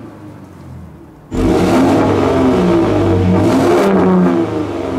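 Ford Raptor's 3.5-litre twin-turbo EcoBoost V6 revved at standstill with its active-valve exhaust in quiet mode. It is faint at first, heard from inside the cab. A little over a second in it becomes loud, heard at the tailpipe, its pitch rising and falling as it revs.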